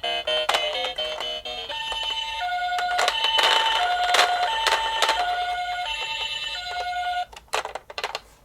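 Electronic ambulance siren in the Japanese two-tone pee-po pattern, a high note and a lower note alternating steadily about every half second. It is preceded by a quick run of electronic beeping notes and followed by a few sharp clicks near the end.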